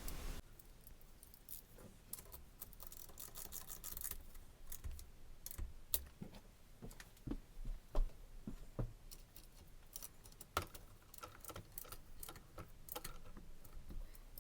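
Channellock ratcheting wrench clicking as bolts are turned, with a quick run of fine ratchet clicks about three seconds in, and scattered clinks and knocks of metal tools and parts.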